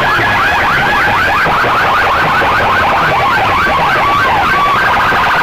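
Electronic alarm siren cycling through its tones: a looping warble, then fast rising sweeps, then choppy chirps with a short steady beep, like a car alarm running through its sequence.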